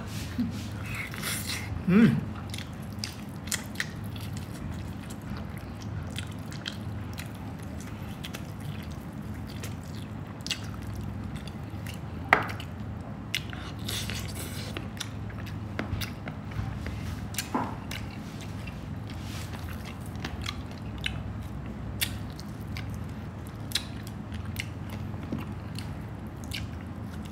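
Close-up mukbang eating sounds: biting and chewing lechon rib meat off the bone, with wet mouth smacks and scattered sharp clicks, over a steady low hum.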